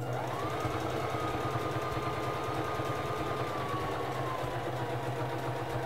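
Singer Fashion Mate 3333 sewing machine running steadily as it stitches the first side of a four-step buttonhole. Its motor whine climbs quickly as it starts, then drifts slightly lower toward the end.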